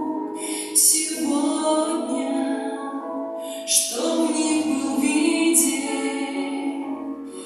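Women's voices singing a slow Russian song in long held phrases, with new phrases beginning about a second in and again near four seconds.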